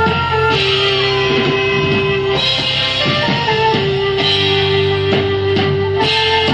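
Live rock band playing an instrumental passage: acoustic guitar and drums under a sustained melody line whose notes step and bend in pitch.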